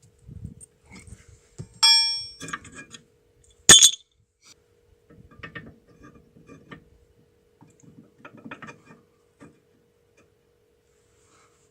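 Metal tools clanging and knocking on metal during brake pad work. About two seconds in comes a ringing clang that fades, then a sharp loud knock just under two seconds later, then lighter taps and scrapes.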